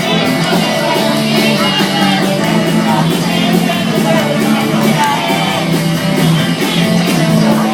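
Loud rock music with shouted, yelled vocals over a fast, steady beat of cymbal strokes and sustained low bass notes.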